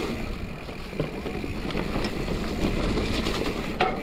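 Mountain bike descending a wet dirt trail: tyres rolling over dirt and the bike rattling, with wind on the microphone and a sharp knock near the end.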